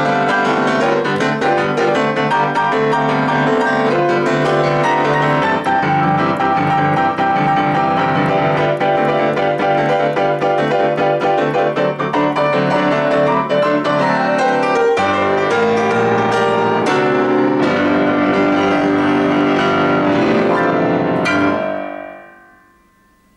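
Boogie-woogie played on a Steinway Model D grand piano, full two-handed playing with a low repeating bass line that shifts lower about fifteen seconds in. The playing stops near the end and the last notes die away quickly.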